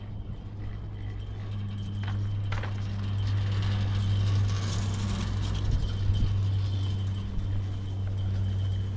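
Edelweiss chairlift running: a steady low mechanical hum with a few sharp clicks about two seconds in and some knocks around the middle, where it grows louder.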